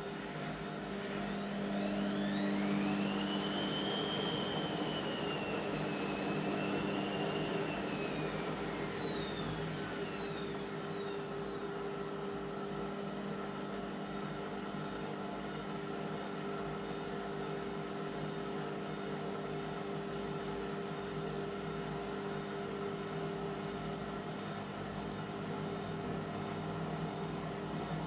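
Indesit washing machine's drum motor whining as the drum speeds up, wavers, then slows and dies away within about ten seconds, over a steady mechanical hum.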